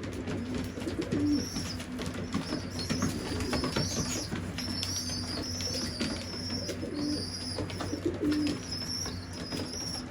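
Racing pigeons in a loft: young birds give repeated thin, high squeaking calls throughout, the begging cries of squeakers still being fed by their parents, while adults coo in short low notes now and then. Scattered light clicks sound under the calls.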